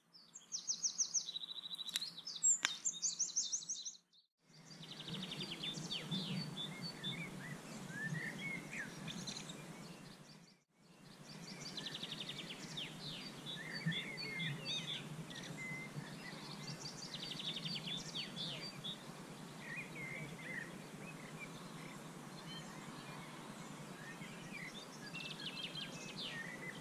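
Songbirds singing and chirping, with repeated short trills and scattered calls, over a steady low outdoor background noise. The first few seconds hold a separate burst of high, rapid chirping with a couple of sharp clicks.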